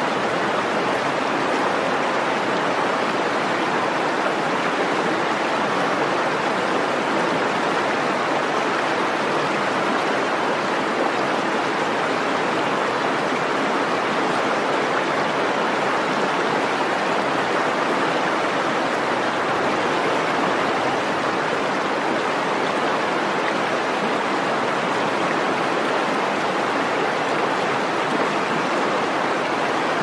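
Waterfall plunging into its pool and a stream rushing down over rocks below it: a steady, unbroken rush of water.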